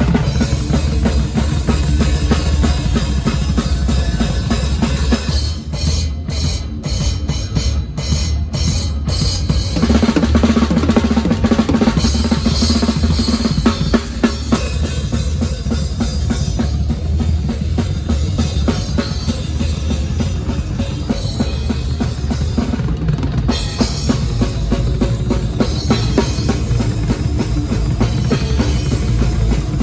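A band playing loud, with the drum kit heard most, bass drum and snare driving the music. Partway through comes a stop-start passage of short hits with gaps between them before the full band comes back in.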